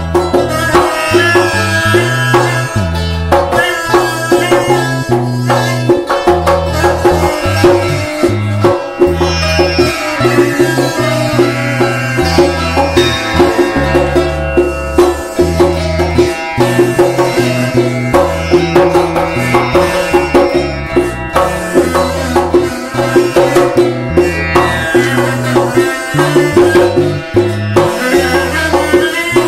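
Instrumental Middle-Eastern-style folk music: an arghul double-pipe reed holding a steady drone under a plucked domra and tamboura, driven by hand percussion with a repeating low drum beat.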